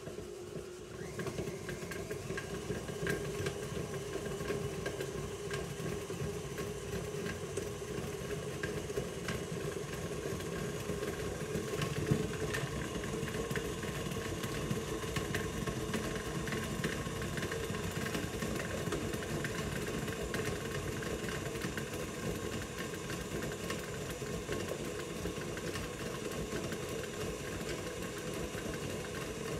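KitchenAid stand mixer switched on about a second in, then its motor running at a steady speed as the beater creams butter and sugar. A few knocks sound over it, the loudest about twelve seconds in.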